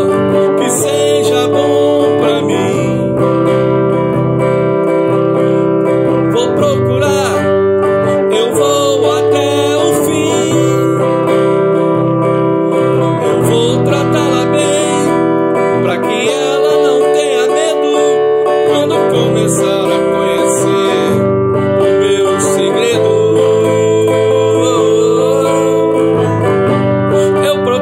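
A man singing while strumming a guitar, the chords and voice running on without a break.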